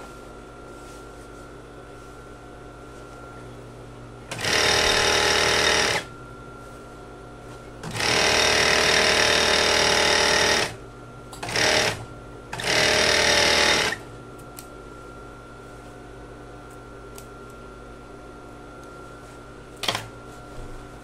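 Overlock (serger) machine stitching a trouser seam in four runs, two of about two seconds, one brief burst and one of about a second and a half, with a steady hum between the runs. A single sharp click comes near the end.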